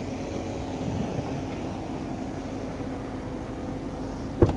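Steady hum of an idling vehicle engine, with one sharp click about four seconds in.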